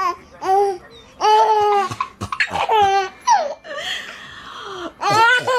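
Baby laughing hard: runs of quick high-pitched ha-ha pulses and long held notes, with a breathy gasping stretch about four seconds in.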